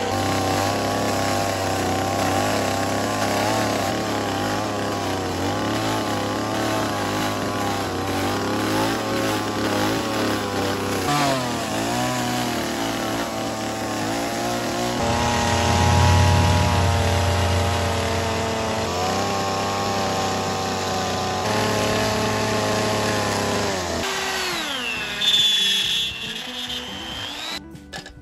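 Stihl MS 170 two-stroke chainsaw with a dime-tip carving bar, running at high revs and cutting fur texture into a small carved wooden bear, its pitch wavering with the cut. Near the end the engine winds down sharply as the throttle is let off.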